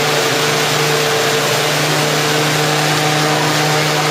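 Countertop blender running steadily: a constant whir with a low, even motor hum.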